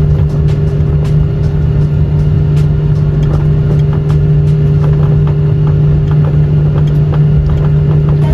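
Jet airliner rolling on the runway after landing, heard from inside the cabin: a steady engine hum over a rumble from the wheels, with frequent light knocks. It cuts off suddenly near the end.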